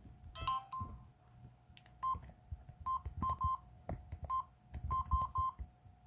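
Samsung SGH-T219 flip phone: a short electronic tone as the flip is opened, then about eight short, evenly pitched keypad beeps with faint button clicks as keys are pressed to move through the menus.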